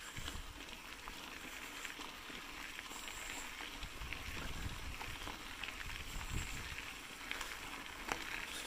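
Bicycle tyres rolling over a rough gravel and potholed lane, a steady low rumble with scattered clicks and rattles.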